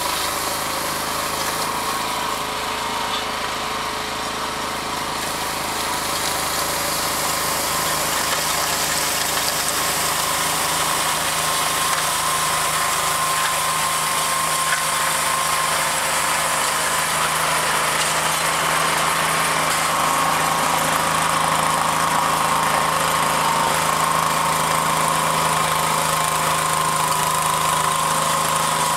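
Two-stage walk-behind snowblower's small engine running steadily while it blows snow out of its chute. It grows gradually louder as the machine comes closer.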